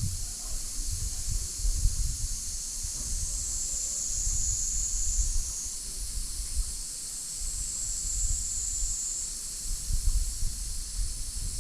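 Steady high-pitched chorus of insects droning, its tone shifting slightly a few times. Low gusts of wind rumble on the microphone underneath.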